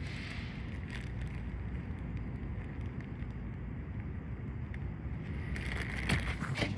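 Steady low rumble with a few faint ticks. Near the end comes a stretch of rustling and light clicking knocks as wood and dirt are moved about in a bag.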